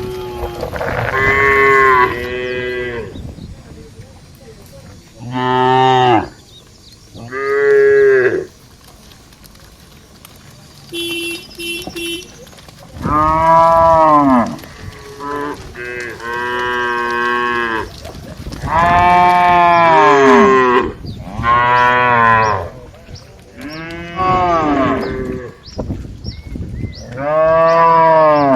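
Several cows mooing one after another: about ten long calls of differing pitch, each rising and then falling.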